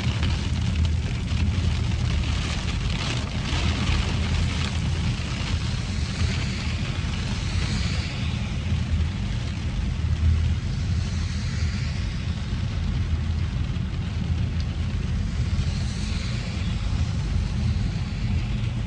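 Steady rumble and hiss of a rainstorm recorded on a phone. The low rumble is the loudest part, with a fainter hiss that swells now and then.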